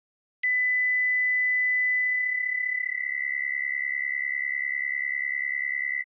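Synthesizer tone at 2 kHz from an Absynth 5 sine wave: it starts with a click and holds steady and pure. About two seconds in, ring modulation by a 35 Hz triangle wave fades in and spreads it into a buzzy cluster of sidebands, the raw sound for a synthetic cricket chirp. It cuts off sharply at the end.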